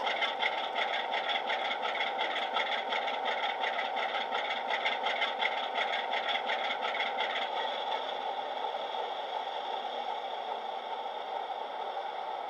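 Recorded Class 47 diesel engine sound from a DCC sound decoder, played through a small tablet speaker inside a Bachmann OO-gauge model locomotive. The engine beats with a rhythmic pulse as the loco draws to a stop, then settles to a smoother, steady idle that slowly fades once it is standing.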